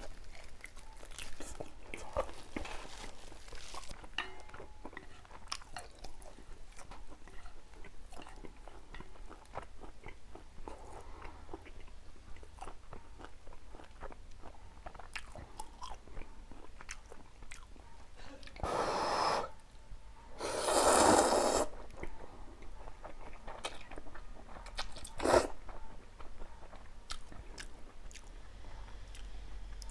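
Close-miked chewing and mouth sounds of eating, with many small wet clicks. Two louder noisy stretches come about two-thirds of the way through, followed by one short sharp sound.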